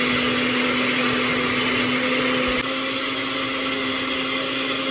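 Electric countertop blender running at a steady, even hum as it purées tomato and chile into a smooth sauce; it gets a little quieter about two and a half seconds in.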